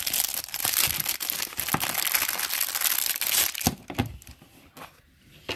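Clear plastic shrink wrap crinkling and tearing as it is peeled off a small cardboard jewelry gift box, for about three and a half seconds, then a few light taps.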